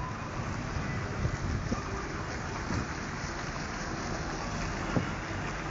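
Wind buffeting a phone microphone in uneven low rumbles, over a steady outdoor roar of a roadside truck stop, with a short knock about five seconds in.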